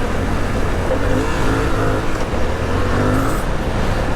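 Suzuki V-Strom 800DE's parallel-twin engine revving up and down as the throttle is worked on a sandy dirt trail, over a heavy low rumble of wind and riding noise.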